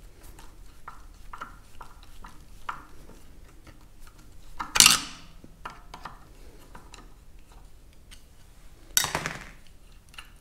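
Screwdriver backing a corroded idle adjusting screw out of a Farmall M carburetor body: faint ticks as the screw turns, and two louder metallic clinks of tool on metal, about five and nine seconds in.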